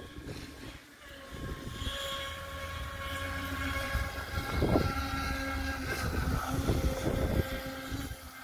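Radio-controlled speedboat's motor whining steadily as it speeds across the pond, growing louder after about a second, with its pitch climbing slightly around six seconds in. Gusts of wind buffet the microphone near the middle and again later.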